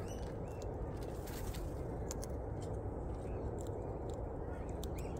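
Corellas pecking and cracking seed on a feeder tray: irregular sharp clicks and light scrapes over a steady low background noise, with faint short chirps from small birds now and then.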